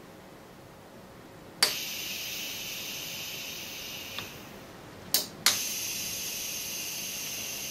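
Pneumatic rotary actuator rocking an aluminum vial rack through 90 degrees: a solenoid valve clicks and compressed air hisses steadily for about two and a half seconds as the rack turns. About four seconds after the first, a second set of clicks and another hiss as it rotates back.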